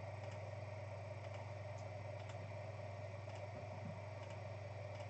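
Faint, scattered clicks, roughly one a second, over a steady low electrical hum and room noise.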